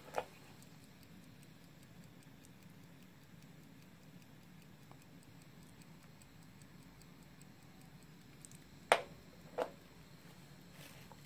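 Mechanical pocket stopwatch ticking softly as it times the boil, over a low steady background from the lit gas canister stove. A click just after the start and two louder knocks about nine seconds in as the stopwatch is picked up and set down on the wooden floor.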